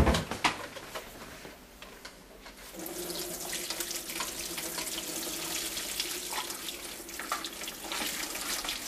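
A knock right at the start, then from about three seconds in a steady stream of water splashing into a stainless-steel sink: hot pasta water being poured from a steel pot through a colander to drain spaghetti.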